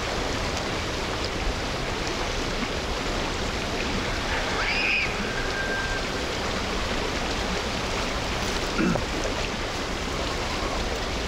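Steady rushing noise like running water, with a brief chirp about five seconds in.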